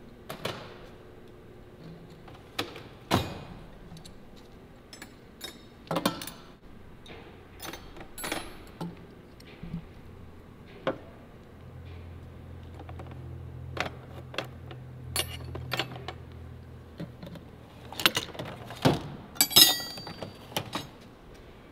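Metal hand tools (wrenches) clinking and rattling, with scattered knocks and clanks, and a low hum for a few seconds in the middle.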